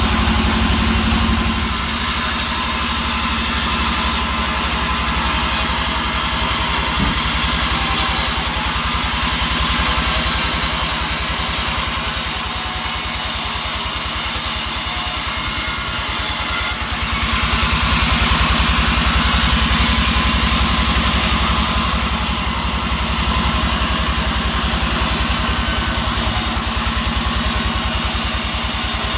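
Engine-driven sawmill running steadily as the saw cuts through a pine log. A hissing cutting noise swells and eases several times over the engine's steady running.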